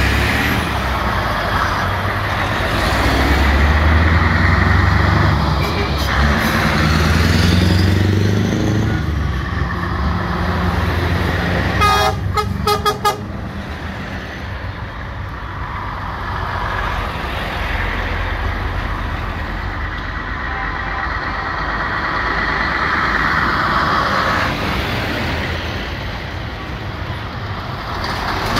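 Trucks driving past in a convoy, engines rumbling and swelling as each one goes by, with horns tooting. A quick run of clicks sounds about twelve seconds in.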